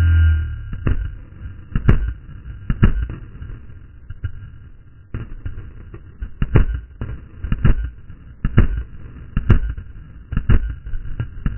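Paintball marker firing single shots, sharp pops about once a second, with a pause of a few seconds after the first three.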